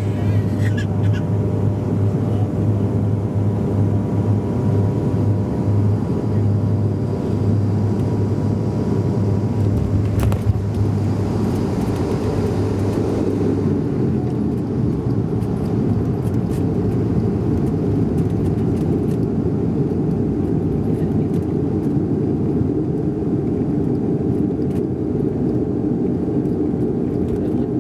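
Inside the cabin of a Bombardier DHC-8 Q400 turboprop landing: the steady drone of its propellers, with a strong low hum. About ten seconds in the main wheels touch down with a single thump, and from about fourteen seconds the hum gives way to a broader, rougher rumble as the aircraft rolls out on the runway.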